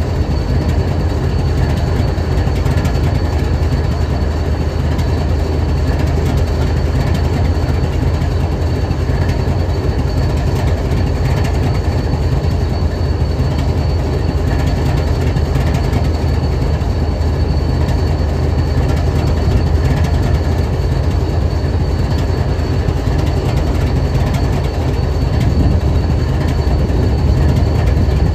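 BNSF diesel-electric locomotive idling steadily, a deep low rumble with a faint steady high whine over it.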